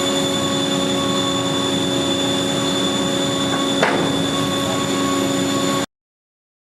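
Four-sided planer-moulder running with a steady, many-toned machine whine over a rush of noise. There is a brief knock about four seconds in, and the sound cuts off abruptly shortly before the end.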